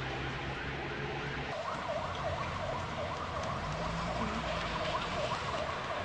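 An electronic siren or alarm starts about a second and a half in, warbling rapidly up and down, about two to three cycles a second, over a steady background hiss.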